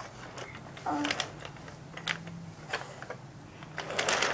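Scattered light clicks and clacks of wooden toy train cars and track pieces being handled and knocked together on a hard floor, with a short vocal sound from the child about a second in.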